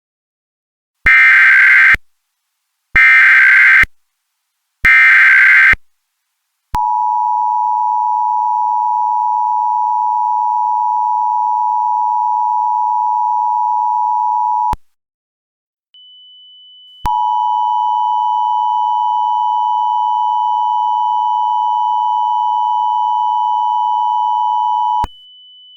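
Emergency Alert System tones: three one-second bursts of SAME digital header data, a second apart. Then comes a steady attention tone lasting about eight seconds, which stops and sounds again for another eight seconds. A faint high steady tone comes in just before the second run.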